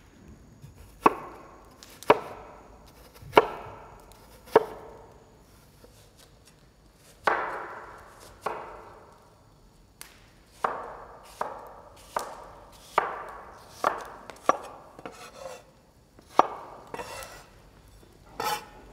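A kitchen knife chopping on a wooden cutting board. About fourteen single strokes land a second or so apart, each a sharp knock that trails off, with a pause about a third of the way in and quicker strokes after the middle.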